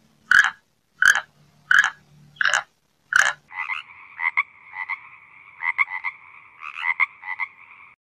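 Five loud, evenly spaced croaking calls, about one every 0.7 s. From about halfway through, a tree frog takes over with a steady trill broken by quick pulses.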